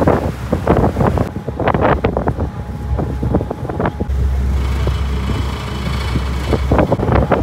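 Gusty wind buffeting the microphone on the deck of a moving river ferry, over a low rumble. A steadier low hum, likely the ferry's engine, runs under it in the second half.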